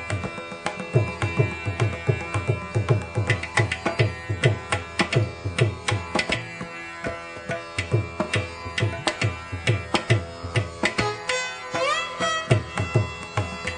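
Indian classical background music: tabla strokes in a steady, fast rhythm under a plucked string instrument playing over a drone, with a rising slide on the strings near the end.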